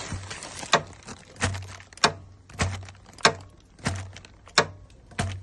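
Wrench with a 27mm socket being worked over and over on a 2002 Smart car's stuck oil filter housing: steady metallic strokes about every two thirds of a second, alternating a sharp click with a duller knock.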